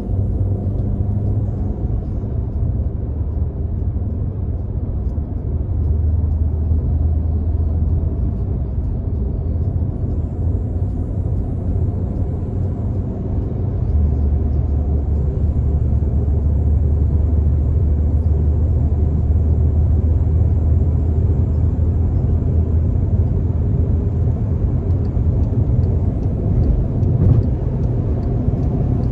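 A turbocharged Volkswagen Jetta cruising, its engine and road noise making a steady low drone. The drone grows louder about halfway through.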